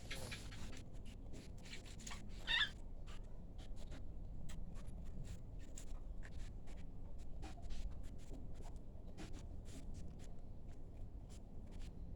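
Snoring: a low steady breathing rumble with many small, irregular crackling clicks, and one brief high squeak about two and a half seconds in.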